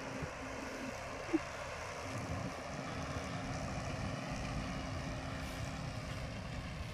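Tractor engine running steadily in the distance, a low even drone over the rush of open-air wind.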